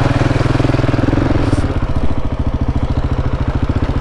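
KTM 690 Enduro's single-cylinder engine running steadily at low speed as the bike is ridden along a dirt track. A rougher noise riding over the engine eases about halfway through.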